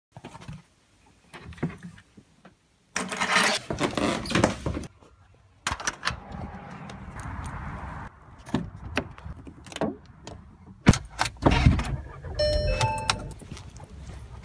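Car keys jangling and a run of sharp clicks and knocks, with a low rumble underneath from about halfway through and a few short electronic beeps near the end.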